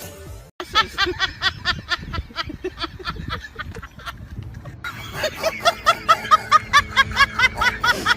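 High-pitched, rapid giggling: short repeated bursts of laughter, about five a second, getting louder about five seconds in, over background music.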